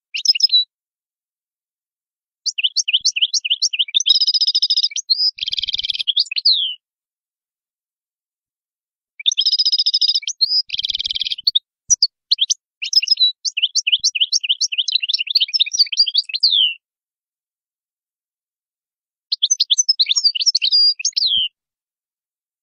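European goldfinch singing: phrases of rapid, high twittering notes mixed with a few harsher buzzy notes, in several bursts with silent gaps of two to three seconds between them.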